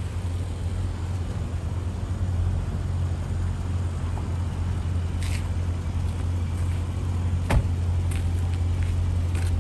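Dodge Challenger Scat Pack's 392 HEMI V8 (6.4-litre) running at a steady low rumble as the car creeps along at walking pace and stops. A few short sharp clicks come in the second half, one sharper than the rest.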